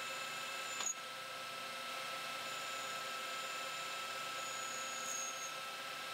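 Metal lathe running with an insert turning tool cutting a small part: a steady machine hum made of several even tones over a hiss, with a thin high-pitched cutting tone that fades in and out. A short click about a second in.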